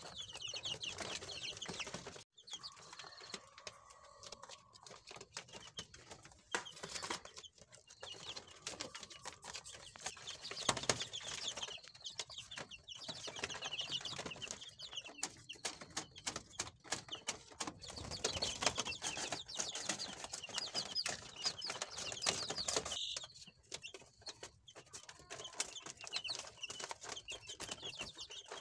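A brood of 17-day-old frizzle and regular chicks peeping continuously, many high, short chirps overlapping.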